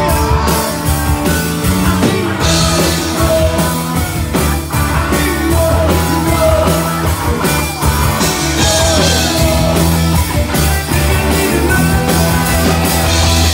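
Live rock band playing loud: electric guitars, bass and drum kit, with sung vocals.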